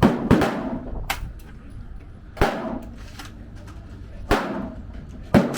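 Pistol firing single shots at an uneven pace: two quick shots at the start, then one every second or two, five loud shots in all, each crack trailing off in a short echo. A fainter shot comes about a second in.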